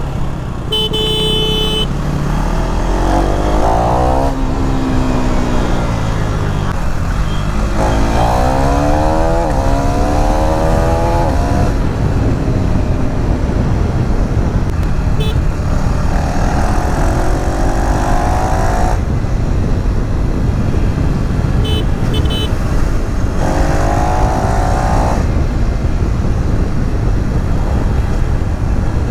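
KTM Duke 390 Gen3's single-cylinder engine under way, rising in pitch again and again as it pulls up through the revs, over steady wind and road noise. A vehicle horn sounds briefly about a second in.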